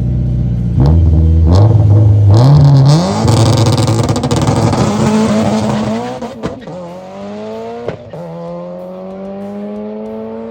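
Car engine at full throttle on a track, accelerating hard with its pitch climbing in steps, then the sound drops off sharply about six seconds in, leaving a quieter engine tone that rises slowly.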